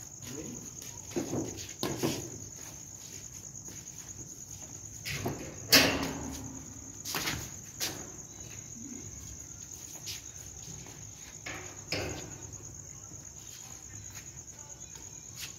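Crickets chirping in a steady high trill, over which come the sharp smacks of badminton racquets striking a shuttlecock during a rally, the loudest hit about six seconds in.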